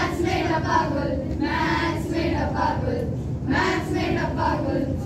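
A group of schoolchildren singing together in unison, in three short phrases with brief pauses between them.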